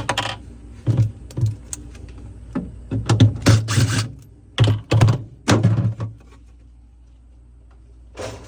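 Knocks, clicks and clattering of plastic and metal parts being handled inside a refrigerator compartment, about a dozen sharp strikes and quick rattles, then quieter, with one more knock near the end.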